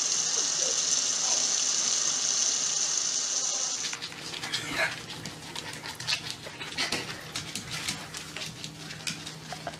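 Kitchen tap running into a steel sink, a steady rush of water that cuts off about four seconds in. After it come quick irregular clicks and scuffles of a dog scrambling on a hard floor, with a brief sound falling in pitch about a second after the cut.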